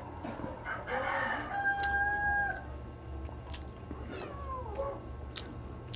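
A rooster crowing: a rough start, then a long steady held note of about a second; a shorter falling call follows about four seconds in. Light clicks of eating by hand come and go.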